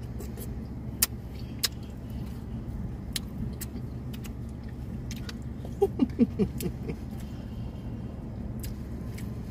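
Steady low hum of a car heard from inside the cabin, with scattered light clicks of a plastic spoon against a plastic cup while eating ice cream. About six seconds in, a few short hums from a voice.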